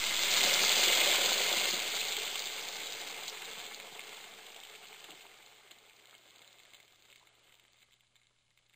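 Food sizzling as it fries, loudest at first and then fading away over about seven seconds.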